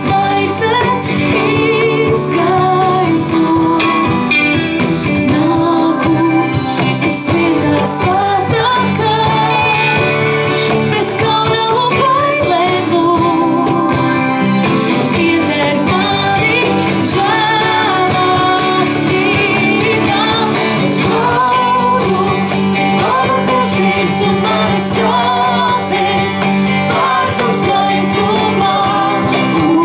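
Live worship band playing a song: a woman sings lead over strummed acoustic guitar, electric guitar, bass, keyboard and cajon.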